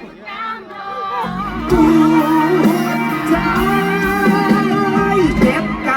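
Live mor lam band music: a long held melody line over a sustained lower accompaniment, with plucked-string instruments.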